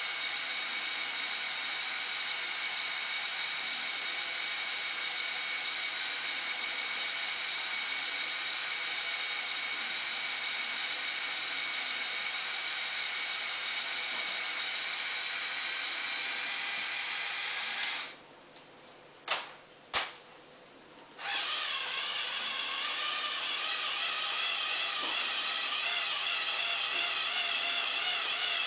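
Small Lego Technic electric motors whining steadily through plastic gearing as the model spider crane moves. The whine stops for about three seconds past the middle, with two sharp clicks in the gap, then starts again with a wavering pitch as the crane boom lifts.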